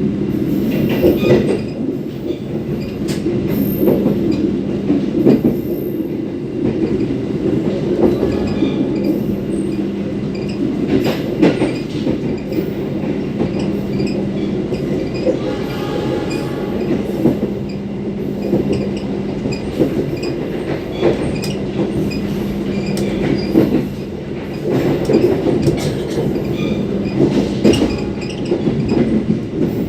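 Passenger train carriage running, heard from the vestibule between cars: a steady rumble of wheels and bogie with scattered clicks and clacks over the rail joints, and a brief squeal about halfway through. The uploader hears an odd squeaking, jingling sound from the bogie that is unlike the usual wheel noise and hopes it is not a fault.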